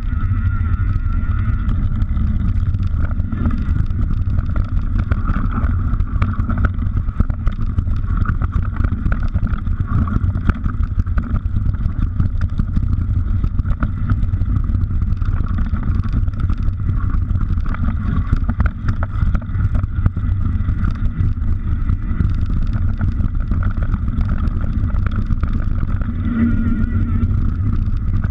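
Wind rushing over the camera microphone with tyre noise and rattling from a mountain bike descending a rough dirt trail: a steady low rumble full of small clicks and knocks.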